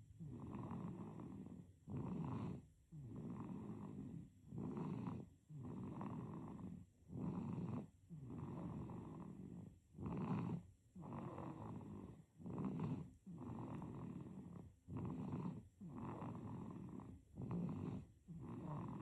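A sleeping baby snoring in a steady, quick rhythm, about one breath every two seconds or so. Each breath is a short, louder snore followed by a longer, softer one.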